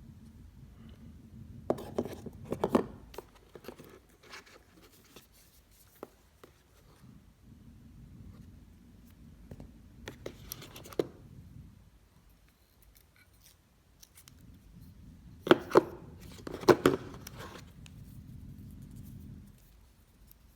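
Packaging being handled and opened: scattered scrapes, taps and tearing of paper or plastic in three short clusters, the loudest near the end.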